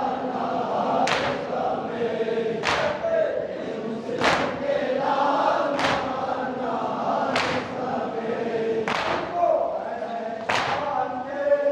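Men's voices chanting a Shia nauha (lament) together, with the congregation's chest-beating (matam) landing in unison as a sharp slap about every second and a half, seven times.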